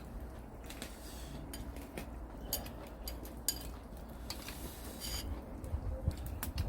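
Scattered light clicks and clinks of eating utensils against dishes, over a low steady rumble.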